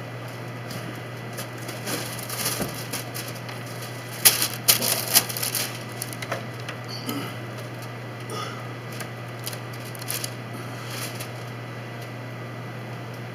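Rustles and light knocks as the painter shifts and leans on the drop cloth, loudest about four seconds in, with a few soft scrapes and ticks afterwards, over a steady low hum.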